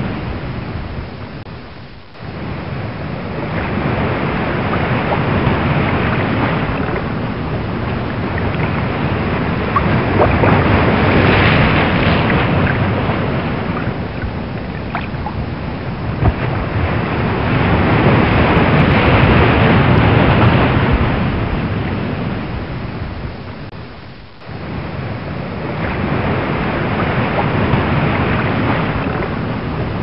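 Rough open-sea waves with wind: a continuous rushing that swells and eases every several seconds, dropping away briefly twice.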